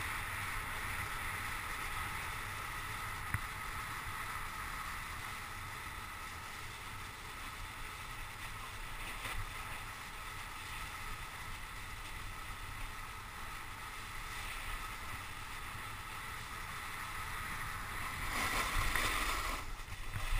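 Snowboard sliding and carving through wet slush, a steady sloshing hiss, with low wind rumble on the microphone. Near the end the scraping gets louder for a couple of seconds.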